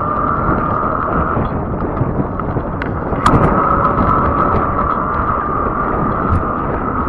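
Fat-tyre electric bike riding: a steady whine from the hub motor over tyre rumble and wind on the microphone, with a single sharp click about three seconds in.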